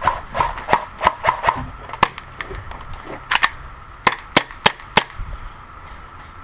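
Airsoft guns firing semi-automatic single shots: about a dozen sharp cracks, a quick run of six in the first second and a half, then a lone shot, a pair, and four evenly spaced shots about a third of a second apart, ending about five seconds in.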